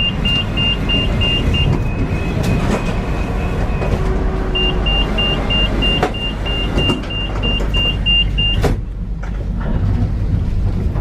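Tram door warning signal: a high beep pulsing about three and a half times a second, broken by a steady tone for a couple of seconds, then a sharp knock about eight and a half seconds in as the beeping stops, over the low rumble of the tram.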